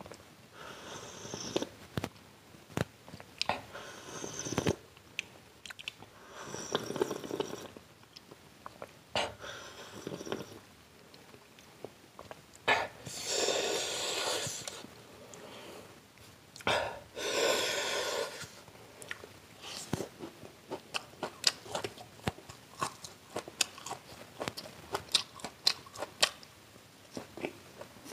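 Close-miked eating: crunching bites and chewing of deep-fried pakoras, a rapid stream of sharp mouth clicks, broken by several longer noisy stretches of a second or two.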